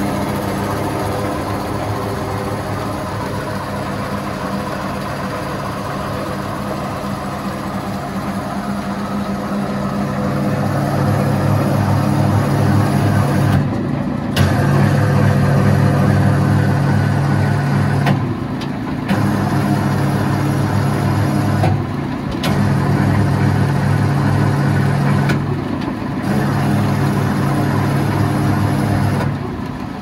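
Tractor-driven PTO wood chipper running. It grows louder about ten seconds in and is broken by short dips every three to four seconds.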